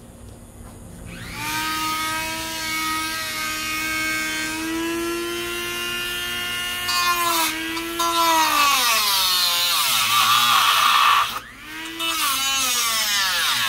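Handheld electric power tool cutting into fiberglass, starting about a second in. Its motor whine sags and wavers in pitch as the tool takes the load, and it stops briefly about eleven seconds in before running again.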